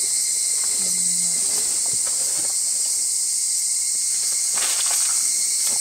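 Steady high-pitched chorus of insects buzzing, with a short low hum about a second in.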